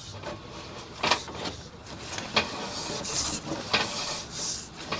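A few sharp knocks, about four spread out, with hissing, scraping rubs between them.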